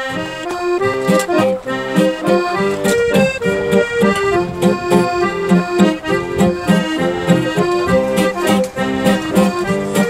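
Accordion playing a folk tune over a steady rhythm, with a nylon-string acoustic guitar accompanying; no singing yet.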